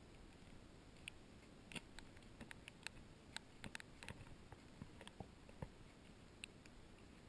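Near silence with faint, irregular clicks and ticks scattered through it.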